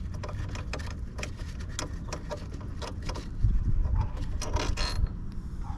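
Socket ratchet clicking in quick runs as a stubborn bolt is backed out of a motorcycle frame. Duller knocks from handling the tool come about halfway through.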